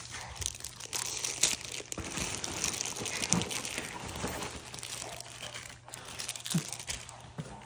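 Packaging crinkling and rustling with small clicks and crunches as a cardboard shipping box of mail is rummaged through.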